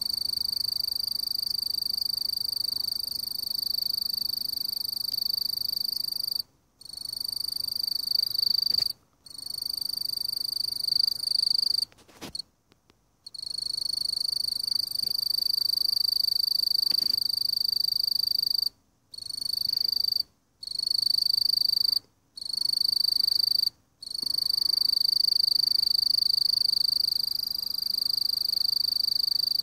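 Mottled bush cricket (Eurepa marginipennis), a katydid, calling: a continuous high-pitched buzz in long trains of several seconds, broken by about seven short pauses.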